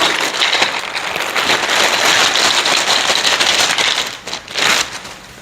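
Plastic packaging crinkling and rustling as it is handled, a dense crackle that dies away near the end.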